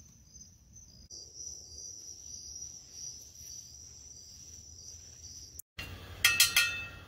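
Crickets and other night insects chirping in a steady, high-pitched, pulsing chorus, growing louder about a second in. The chorus cuts off abruptly over half a second before the end, and a few sharp clinks follow.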